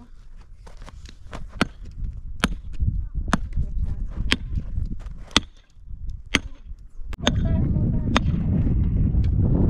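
Sharp hammer blows on stones and a wooden post, about one a second, as a post is knocked upright and wedged at its base. Near the end a steady low rumble sets in under the blows.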